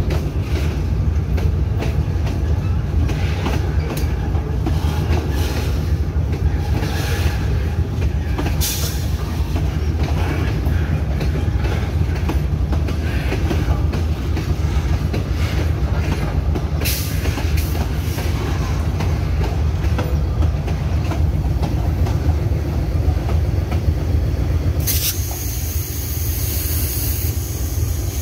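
Loaded railway tank wagons of a freight train rolling slowly past close by: a steady low rumble of wheels on rail, broken by frequent clanks and clicks. Near the end the rumble eases and a high hiss comes in.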